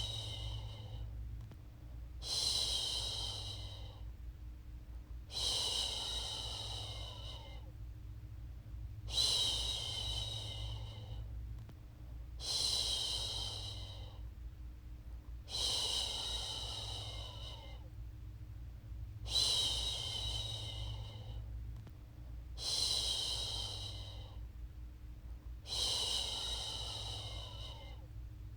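A woman shushing 'shhh' to soothe a baby: long hushes of about two seconds each, repeated steadily about every three and a half seconds over a low, steady hum.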